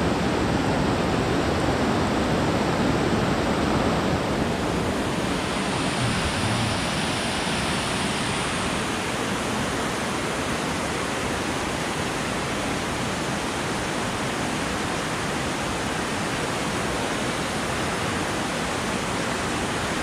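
Rushing water of a fast-flowing forest creek, a steady even hiss without breaks.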